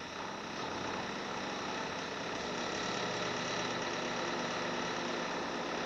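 Honda car's air conditioning running with the engine idling: a steady, even hum and whoosh.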